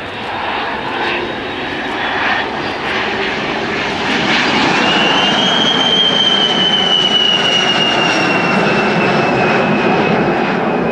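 White Knight Two's Pratt & Whitney PW308A turbofan jet engines passing overhead: the engine noise swells about four seconds in, and a high turbine whine appears and slowly falls in pitch as the aircraft goes by.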